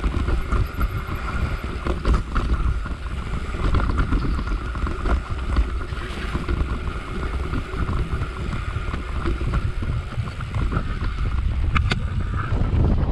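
Wind buffeting the microphone of a camera on a mountain bike riding fast over a rough grassy moorland track, with the constant rumble and irregular knocks of the tyres and bike over bumpy ground. A steady high buzz runs under it and cuts out near the end.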